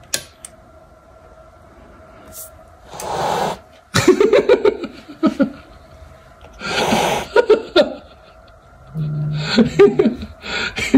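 A light switch clicks off, then laughter in several breathy bursts.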